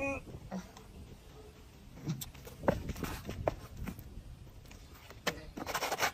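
A short vocal sound, then scattered taps and scuffs of a person's hands and sneakers on a concrete pavement as they move from all fours to standing, with a longer scraping scuff near the end.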